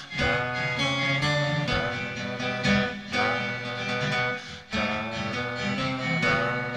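Steel-string acoustic guitar strumming chords, with a new chord struck about every one and a half seconds.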